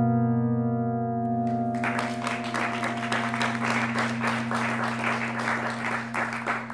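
A held final chord of live amplified music rings on steadily. About a second and a half in, audience applause and clapping break out over it.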